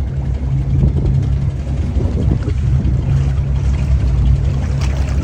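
Lobster boat's engine running steadily at low speed, a continuous low rumble.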